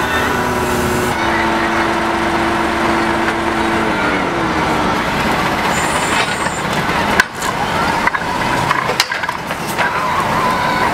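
Truck-mounted core drilling rig running steadily, with a hum that slides lower in pitch about four seconds in. Near the end come three sharp knocks, about a second apart.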